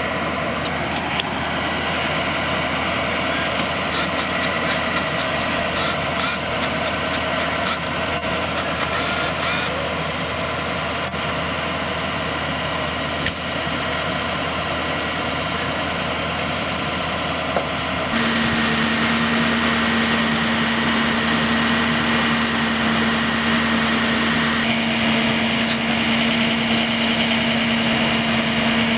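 Engines of emergency vehicles idling, a continuous steady hum with scattered clicks in the first half. About eighteen seconds in, a steadier, louder engine hum comes in and keeps on.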